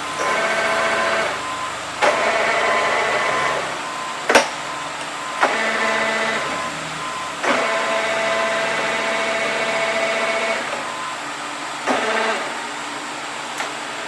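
Rapid traverse on a large SIRCO manual lathe run in several short spells, a steady whine lasting one to three seconds each time, each starting with a sharp clunk of the control, over the lathe's continuous running.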